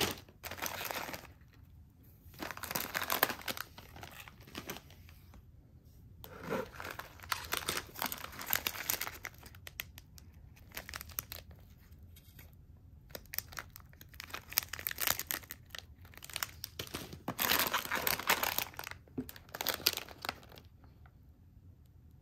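Plastic snack wrappers crinkling as they are handled, in several bursts a few seconds long with quieter gaps between.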